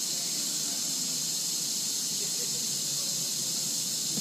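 Steady high-pitched hiss with no distinct events.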